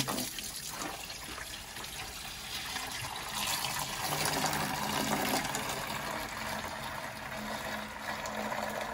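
Liquid slurry pouring in a steady stream from the opened outlet valve of a home biogas digester tank, splashing into a plastic bucket as it fills.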